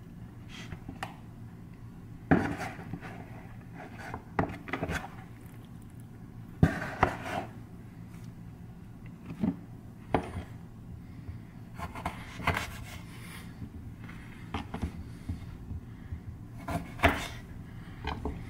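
Kitchen knife and small limes knocking and tapping on a plastic cutting board as the limes are cut in half: a dozen or so scattered knocks, the two loudest a couple of seconds in and near seven seconds, over a faint steady hum.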